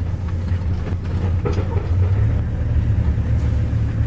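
Ford XW Falcon's 3.6-litre six-cylinder engine running with a steady low rumble, heard from inside the cabin.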